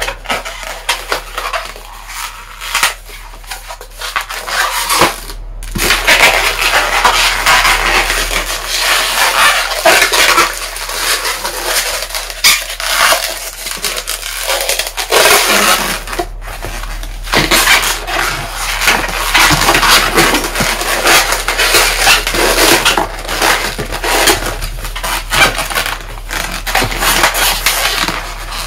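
Long latex modelling balloon squeaking and creaking as it is twisted and folded into bubbles by hand: a dense run of rubbery squeaks, broken by two brief pauses.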